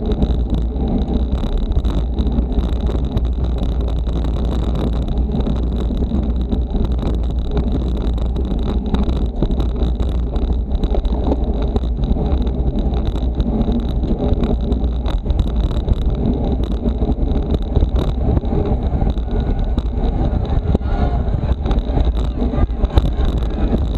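Steady wind rush and rumble over a bike-mounted camera's microphone while a road bicycle is ridden fast in a racing bunch, with tyre noise on the asphalt.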